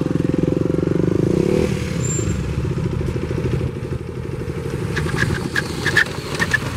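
Motorcycle engines running at low speed: one idling close by, another riding up slowly. A few short high squeaks come near the end.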